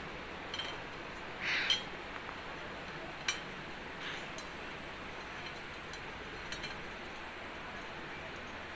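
Pet cockatiel playing with its toys: scattered light clicks, taps and clinks as it pecks and knocks at them, with a short scrape about a second and a half in, over a steady hiss.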